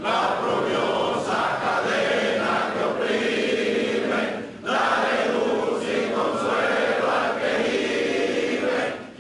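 A crowd of supporters chanting in unison, in long held phrases with a short break about four and a half seconds in.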